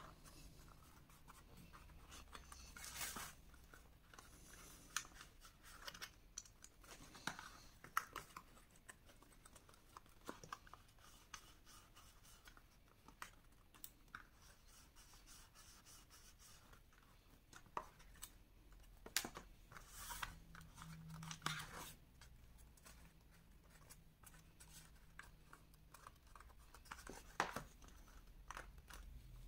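Very faint, scattered rustles, scratches and small taps of hands handling and pressing a glued card-stock frame on a cutting mat.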